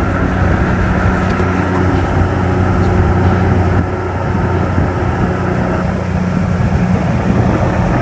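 Outboard motor of a small inflatable boat running steadily at speed, a constant low drone, with the rush of water and wind as the boat planes across a lake.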